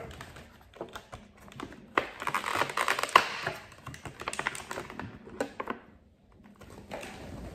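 A Funko Pop vinyl figure being taken out of its cardboard box and plastic insert: a run of irregular clicks and rustling, busiest and loudest from about two to three and a half seconds in, with one sharp click near the middle.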